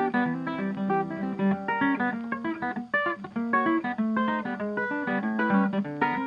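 Background acoustic guitar music: a fast run of plucked notes.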